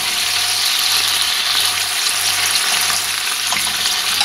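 Pork chops frying in a pan with white wine cooking down in the oil, a steady sizzle as the wine evaporates.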